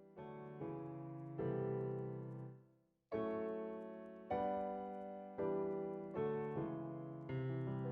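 Soft background piano music: chords struck one after another and left to ring out, with a brief break about three seconds in.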